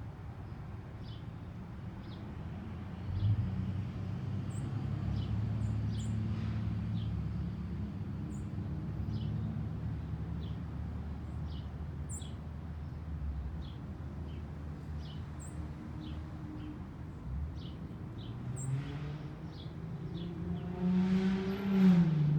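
Small birds giving short, high chirps again and again over the low, steady hum of a vehicle engine. Near the end a car comes closer and grows loud.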